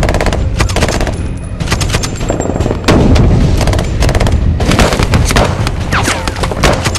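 Bursts of automatic rifle fire from several guns in rapid runs of shots, over a steady low rumble. A heavier volley comes in sharply about three seconds in.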